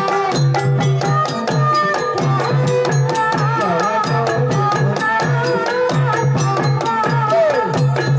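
Javanese gamelan ensemble playing a Banyumasan tayub gending: a steady, dense rhythm of kendang hand-drum strokes and struck bronze bonang and metallophone keys, with a female sinden singing a wavering melody over it.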